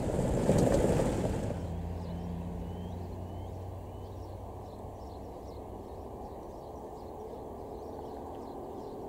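A van crossing the bridge passes close by, its tyre and engine noise fading out about a second and a half in. After that only a low, steady outdoor background remains, with a few short bird chirps.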